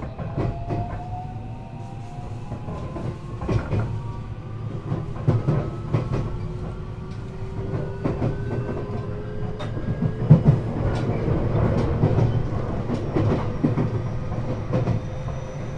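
521 series electric multiple unit running, heard from inside the car: the inverter and traction motor whine rises slowly in pitch as the train accelerates, then levels off. The wheels clack over rail joints under a low running rumble.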